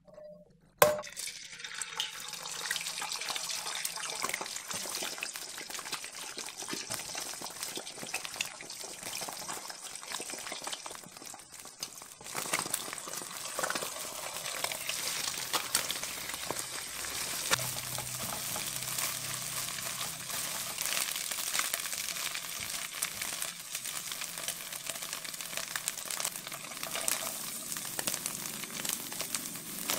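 Beaten eggs sizzling in hot cooking oil in a nonstick frying pan, starting with a sharp hiss about a second in, while a silicone spatula stirs and scrapes them. The sizzle dips and comes back louder about twelve seconds in.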